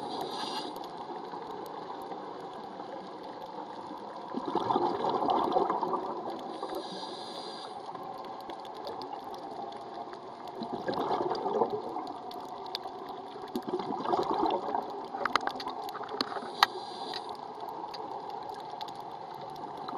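Scuba regulator breathing heard underwater: a short hiss on each inhale and a gurgling rush of exhaled bubbles every few seconds. Scattered sharp clicks come near the end.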